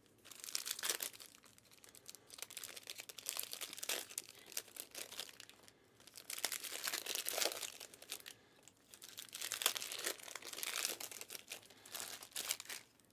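Crinkly plastic wrapping on trading card packaging being handled and torn open, in about four bursts of crackling separated by short pauses.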